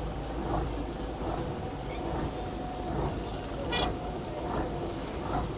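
Fishing boat's engine running with a steady drone, with soft knocks recurring under it and one brief sharp high-pitched sound about four seconds in.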